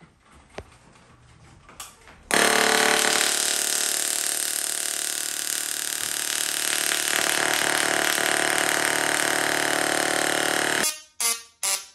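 High-voltage electric arc jumping from a 3D-printed hammer prop to a sheet of paper, a loud steady buzz. It starts suddenly about two seconds in and cuts off about a second before the end.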